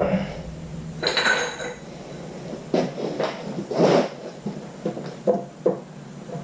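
Short lengths of 3/4-inch EMT steel conduit clinking and knocking against each other and the wood as they are handled and set into holes in a board, a few separate clinks spread over several seconds.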